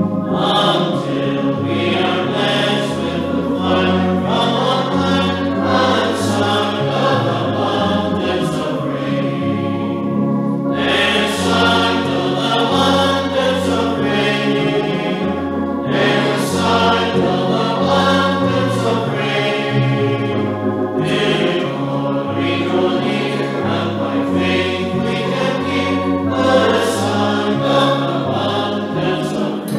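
A church congregation singing a hymn together over sustained low accompanying notes, with short breaks between lines about ten and twenty-one seconds in.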